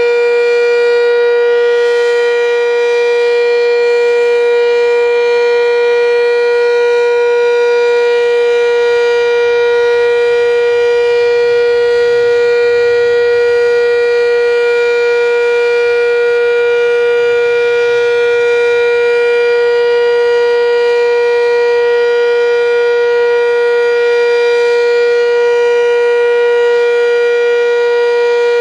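Sentry 7V8-B outdoor warning siren sounding a very loud, steady tone that holds one unchanging pitch throughout, rather than a rising and falling wail.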